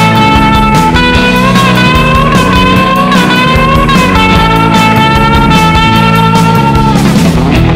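Background music: a guitar-led instrumental over drums and bass, with held, bending lead notes.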